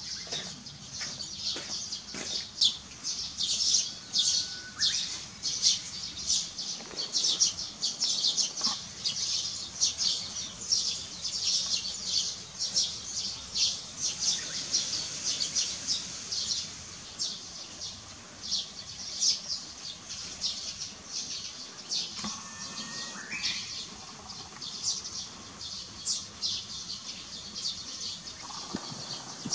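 Small birds chirping in quick, dense runs throughout, with a few brief whistled notes now and then.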